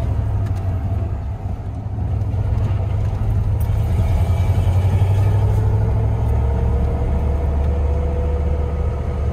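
1999 Dodge Ram 1500's 5.2-litre (318) V8 running steadily with a deep low rumble as the truck drives. It has a new fuel pump, which the owner thinks may have cured its idle surge.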